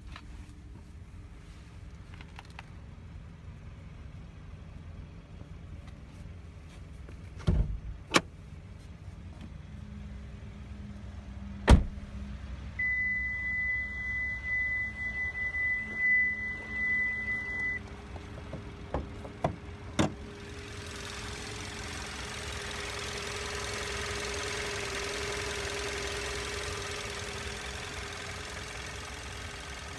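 Car noises: a low steady rumble with several sharp clunks, then a steady high electronic beep for about five seconds. After that comes a rushing sound that swells and eases off.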